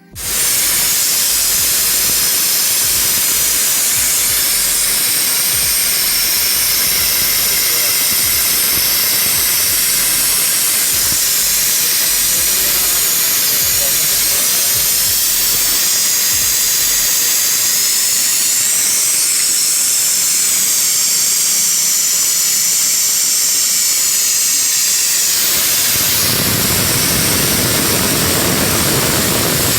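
Loud, steady hiss of air or spray under pressure, starting abruptly and running unbroken, with a deeper rushing layer joining it near the end.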